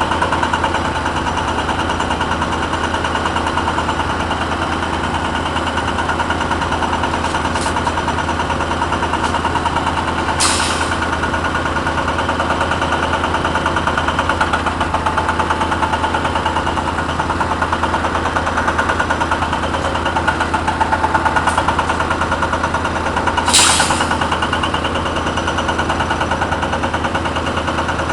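Caterpillar 320 excavator running steadily, with a rapid, even hammering from its hydraulic breaker over the diesel engine. Two short hissing bursts come about ten seconds in and again near twenty-four seconds.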